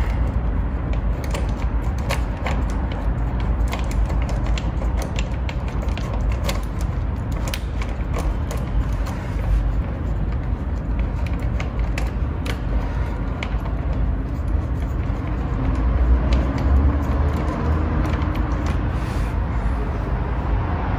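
Hand rivet nut setter being worked to set a rivet nut in a car's sheet-metal body panel: repeated clicks and creaks from the tool, over a steady low hum.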